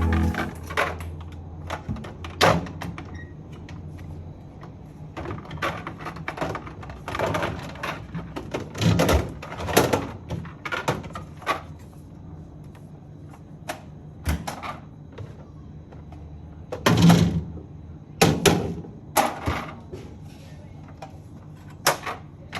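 Irregular knocks, clicks and clatters of items and plastic containers being moved in and out of a refrigerator, with the loudest cluster of thuds about three quarters of the way through.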